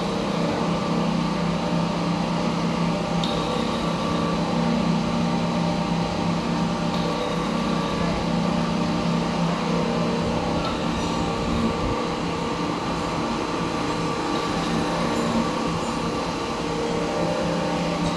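Vertical lathe running, its table turning a heavy stack of steel plates: a steady machine hum with a constant low drone from the drive and a few faint ticks.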